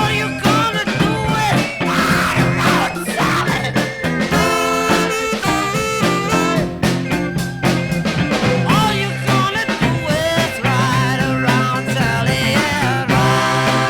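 A 1960s beat band playing with saxophone, electric organ, electric guitar, bass guitar and drums, recorded dry without reverb.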